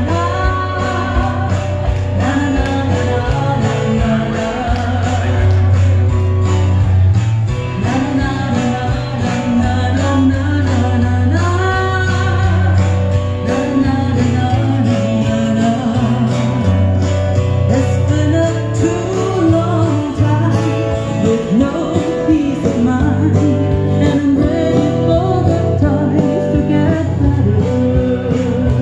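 A live amplified performance: a woman singing over an electro-acoustic guitar, heard through the stage PA, with a steady low bass line underneath.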